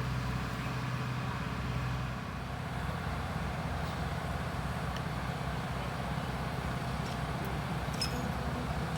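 Heavy diesel engine, likely the crane's, running steadily with a deep, fast-pulsing rumble; a few light clicks near the end.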